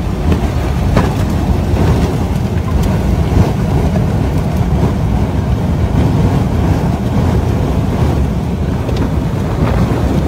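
Wind of an EF3 tornado striking a house, a loud, steady, low rushing noise heard from the family's shelter downstairs. A few sharp knocks break through it about a second in, near three seconds and again near the end.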